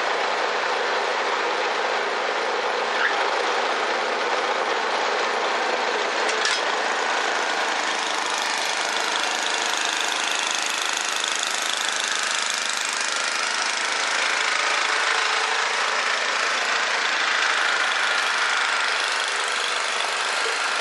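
Snowblower running with a tow strap caught in it: a steady, harsh mechanical racket that holds at an even level throughout.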